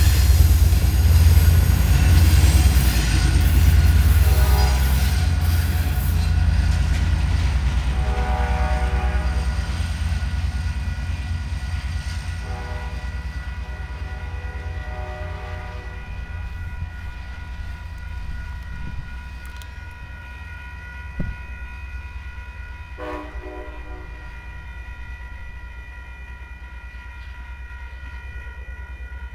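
Amtrak California F59PHI diesel locomotive and its train rumbling past close by, the rumble fading steadily as the train moves away. A train horn sounds several times in the distance, the longest blast about halfway through and a short one near the end.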